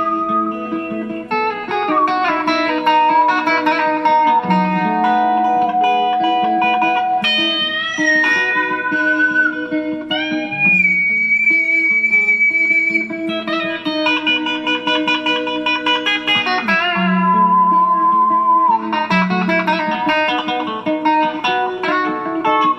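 Electric guitar played through a pedal board: long sustained notes with slides and pitch bends over a steady low note.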